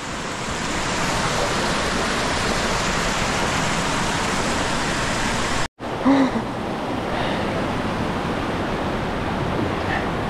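Steady rush of a mountain stream's waterfall falling through the canyon. The sound cuts out for an instant a little past halfway, then carries on a little duller.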